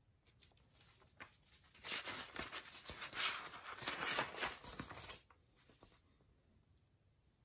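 Paper pages of a printed instruction booklet rustling as they are handled and turned, from about two seconds in for roughly three seconds.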